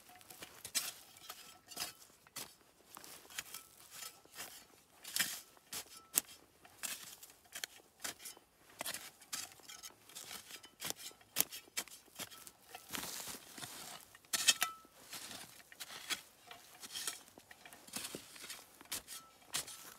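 Branches and dry brush being handled: irregular rustling and crackling with many sharp clicks and snaps.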